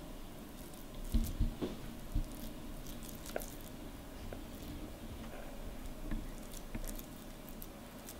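Soft squishing and small clicks of raw ground-pork filling being spooned and pressed by hand into halved bitter melons, with a few low knocks against the wooden cutting board about a second in.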